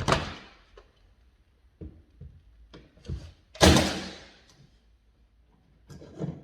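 A series of sharp knocks and bangs: two loud ones, at the start and about three and a half seconds in, each with a short fading tail, several softer knocks between them and a quick pair near the end.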